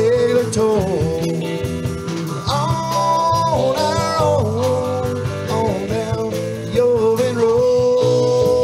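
Background country-rock music: an instrumental passage between sung verses, with guitar leading.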